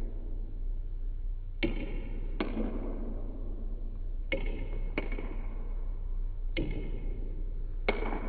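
Ping-pong ball clicking off paddles and table in a slow rally: six sharp clicks, irregularly spaced, each trailing a short echo, over a steady low hum.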